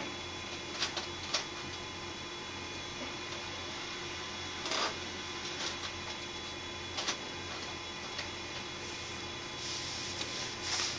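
Steady electrical hum and high whine with hiss, typical of electronic equipment running in a small room. A few short soft clicks and rustles break in, about a second in, near the middle and near the end.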